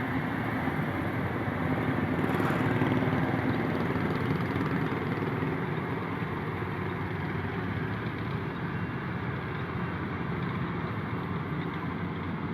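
Yanmar YH850 combine harvester's diesel engine running steadily with a continuous mechanical drone, slightly louder about two to three seconds in.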